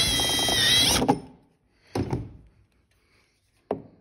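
Power drill with a step drill bit boring through the plastic lid of a cable trunking: a steady, whining cut that stops abruptly about a second in. A few short knocks follow.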